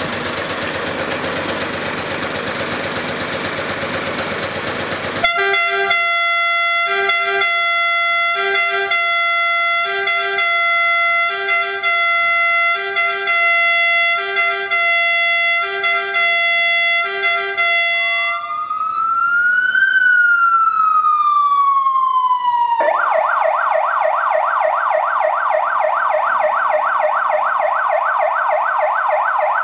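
Fire engine's air horns sounding for about five seconds, then its Federal Signal electronic siren cycling through its tones: a two-tone pattern repeating about every second and a half, one slow wail rising and falling, and then a fast yelp.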